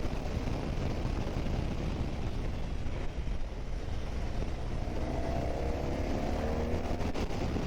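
Motorcycle riding at speed: a steady rush of wind noise with the engine running under it, and the engine note rising from about five seconds in as it speeds up.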